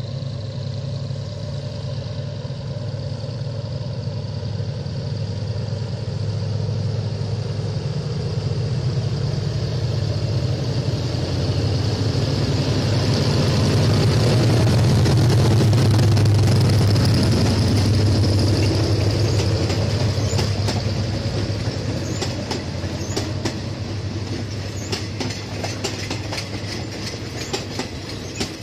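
Diesel locomotive hauling a passenger train passes close by. Its low engine drone builds to a peak about halfway through and then fades as the coaches roll past, their wheels clicking over the rail joints.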